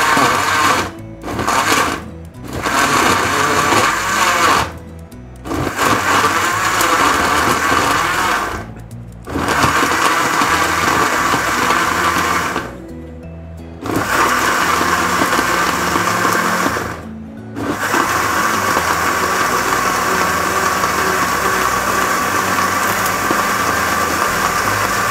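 Electric countertop blender puréeing onion, tomato, lemon, garlic and spices with water into a thin liquid marinade. It is switched on and off about eight times, starting with a few brief pulses, then running for a few seconds at a time, with the last run the longest at about seven seconds.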